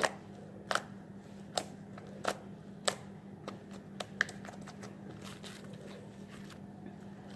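Homemade glitter slime being worked and squeezed by hand, giving a string of sharp little pops and clicks, about eight in the first four seconds, then fainter ones.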